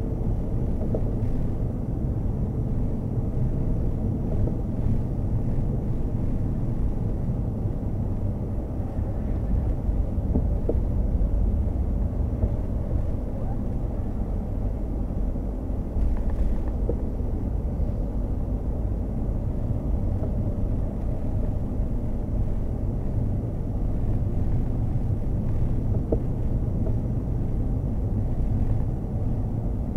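Hyundai Kona Hybrid on the move: a steady low rumble of road and tyre noise.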